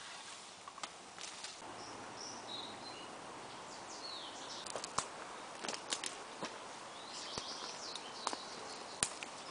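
Footsteps pushing through forest undergrowth: leaves brushing and several sharp twig snaps, clustered about halfway through and again near the end. A few faint bird chirps.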